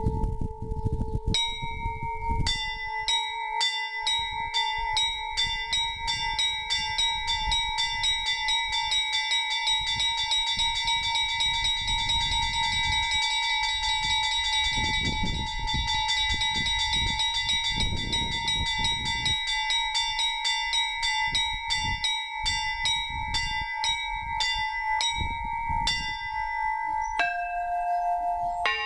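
Orthodox monastery bells ringing a trezvon, the festive peal before the Divine Liturgy. Small high bells are struck in a rapid, even chime, several strokes a second, over the hum of the larger bells. The fast pattern starts about a second in and breaks up near the end.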